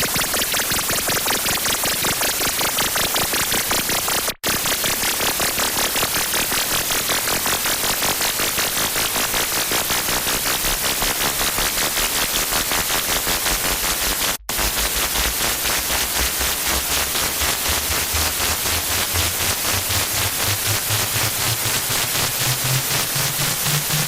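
Harsh noise music: loud, dense electronic static hiss with a rapid flutter, cutting out for an instant about four seconds in and again about fourteen seconds in. After the second gap a low buzzing tone comes in underneath and climbs in steps toward the end.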